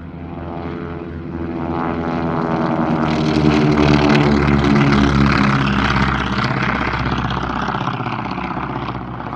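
Propeller-driven airplane flying past: its engine sound builds to its loudest about four seconds in, drops in pitch as it passes, and fades away.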